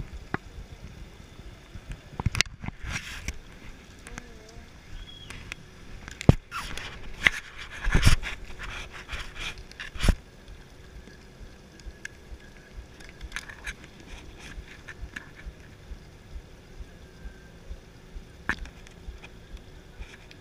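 Scattered sharp bangs and knocks over a low background, the loudest about six, eight and ten seconds in, with smaller clicks in between.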